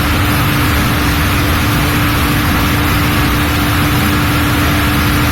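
Steady, even machinery noise of a running chiller, with a constant hum.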